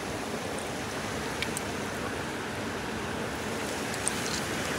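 Steady rushing noise with a few faint, short clicks.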